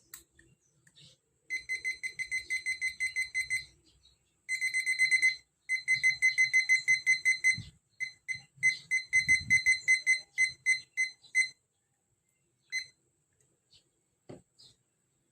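Electronic alarm beeping: a high-pitched, rapid string of beeps in several runs with short gaps, stopping about three-quarters of the way through after one last beep. A single dull thud follows near the end.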